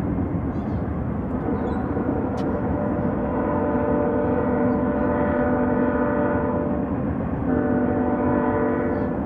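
Distant freight locomotive horn sounding long held blasts across the river, a steady chord of several notes that changes about seven and a half seconds in and breaks off near the end. A low rumble runs underneath.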